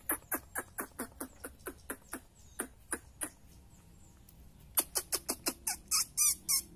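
Javan myna calling a rapid series of sharp chip-like clicks, about four a second. After a short pause comes a faster run of chips ending in brief wavering, warbled whistles.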